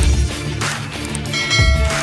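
Background electronic music with a heavy bass beat. About one and a half seconds in, a bright bell-like ding rings out over it for about half a second.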